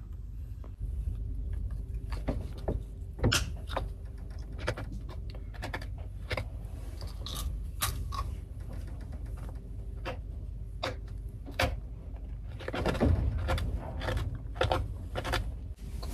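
Hard, dry katapan biscuit being bitten and chewed: a run of sharp, irregular cracks and crunches, thickest about three-quarters through, over a steady low hum.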